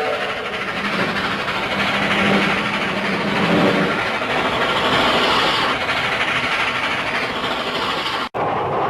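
Cartoon train sound effect: a train running with a steady, dense rushing noise and a low hum through its first half, broken by a brief dropout near the end.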